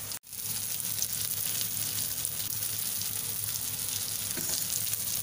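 Pieces of pekasam ikan sultan, fermented fish, frying in oil in a steel wok: a steady crackling sizzle, after a brief cut-out just after the start.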